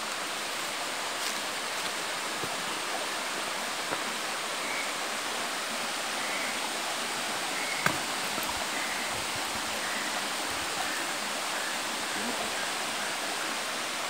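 Steady rushing of water over the rocks of a forest headwater stream near a small waterfall, with a single knock a little past halfway.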